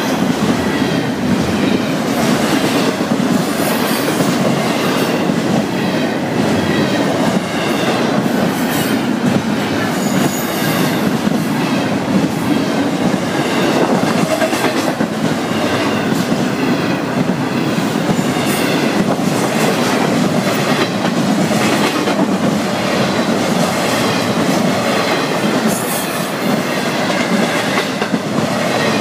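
Double-stack container freight cars of a Florida East Coast Railway train rolling past, wheels clattering steadily over the rail.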